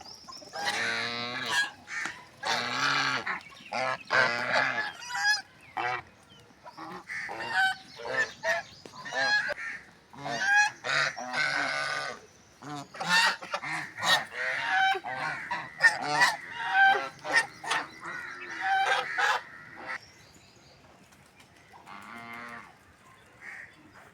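Flock of domestic white geese honking, many calls overlapping in quick succession, thinning out to a few faint calls near the end.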